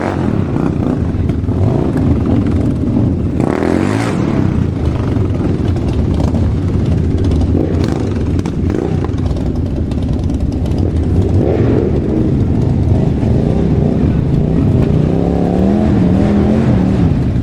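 Motorcycle engine running steadily, its pitch rising and falling once near the end.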